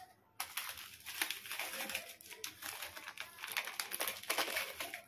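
Plastic Oreo biscuit packets crinkling as they are squeezed and shaken to empty crushed biscuit into a bowl, an irregular run of crackles starting about half a second in.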